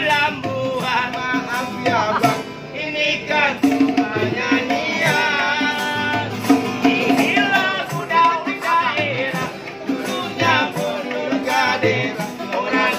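Street buskers performing a song: an acoustic guitar strummed, a small hand drum beaten in a steady rhythm, and men singing.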